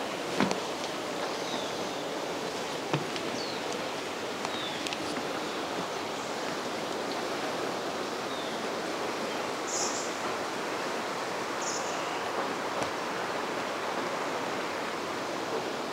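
Steady outdoor rushing ambience, an even noise like wind or running water, with a few faint high chirps and a couple of sharp knocks in the first three seconds.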